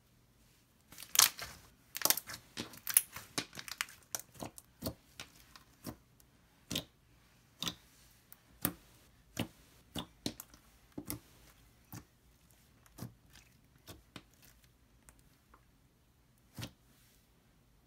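Glossy slime being pressed and stretched, making sharp, quiet clicks and pops: a quick flurry for the first few seconds, then about one a second.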